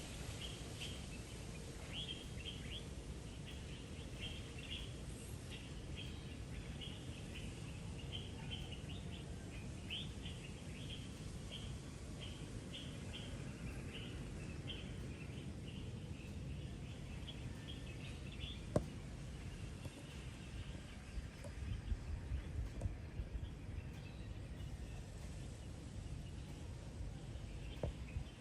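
Birds chirping in a steady run of short, high chirps, several a second, thinning out after about two-thirds of the way through, over a low background rumble; a single sharp click about two-thirds of the way in.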